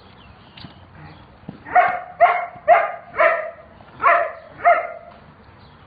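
A dog barking six short, high-pitched barks in a quick run, about two a second.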